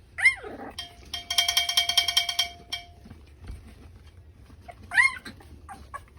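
Newborn bulldog puppies whimpering in short falling yelps, once at the start and again about five seconds in. Between the yelps a rapid ringing, like a bell, sounds for about a second and a half: one of the loud noises used to get the litter used to sound.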